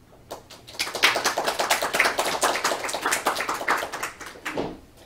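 Audience applauding: a burst of many rapid hand claps that starts about a second in and dies away near the end.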